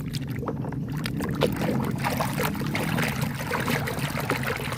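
Water splashing and trickling as a muddy toy is washed, with many small clicks and knocks throughout.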